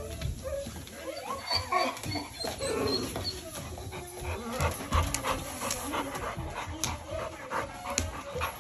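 American pit bull panting in quick breaths, with a few short whines in the first few seconds.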